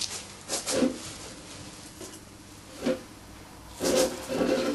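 Chicken wire being picked up and handled: short bouts of metallic rustling and scraping, one about half a second in, a brief one near 3 seconds, and a longer one near the end.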